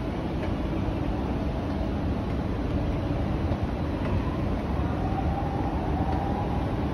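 Steady low rumble and hiss of a metro station's machinery, with a faint whine that rises slightly about five seconds in.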